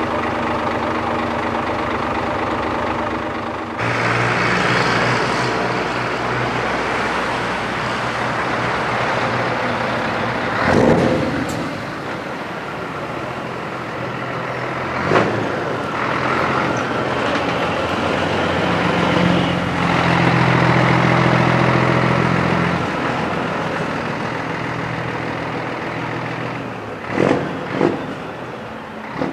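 Scania truck diesel engines running as the trucks stand and drive past, a steady engine note that grows louder for a few seconds past the middle. Several short sharp bursts cut through it, two close together near the end.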